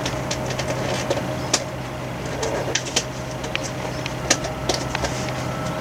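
A steady low mechanical hum with a faint higher steady tone, broken by scattered light clicks and taps.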